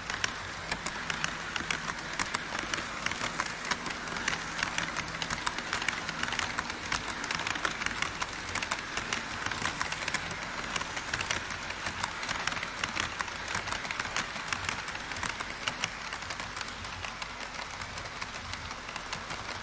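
HO-scale model trains running on KATO Unitrack across a plastic truss bridge: a steady rattle of wheels with rapid clicking over the rail joints, louder around the middle as a train passes on the nearest track.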